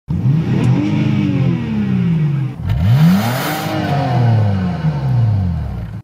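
BMW 3 Series engine revved twice in Park. Each time the pitch climbs and then slowly falls back. The second rev begins about halfway through and climbs more sharply.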